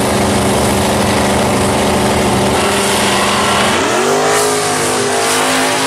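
Drag racing cars' engines held at steady revs on the starting line. About three and a half seconds in, the revs climb sharply as they launch, and they then run at full throttle down the strip.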